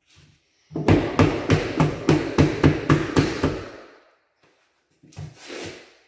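A quick run of about a dozen sharp knocks, roughly four a second, on ceramic wall tile as the tiles are tapped and pressed into place in mastic; a short scrape follows near the end.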